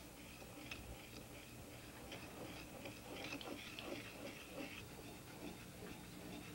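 Faint wet dabbing and small clicks of a tool laying thick glaze onto an unglazed clay tea bowl, busiest from about two to four and a half seconds in, over a low steady hum.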